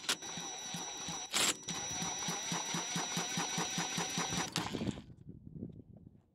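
Cordless impact gun spinning over a Honda GX big-block single-cylinder engine by its flywheel nut, with a steady high whine and a quick, even pulsing, and a louder burst about a second and a half in. It stops about four and a half seconds in. The engine does not fire, because there is no spark.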